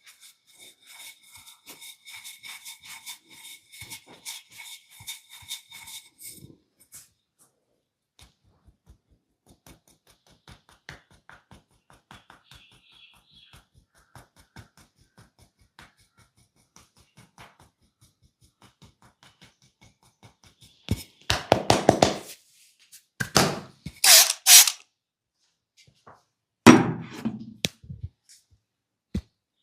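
Head massage by hand: quick, faint scratching strokes of fingers on the scalp for the first several seconds, then scattered light ticks. Near the end come three loud bursts of rapid slapping strikes on the head, each lasting about a second.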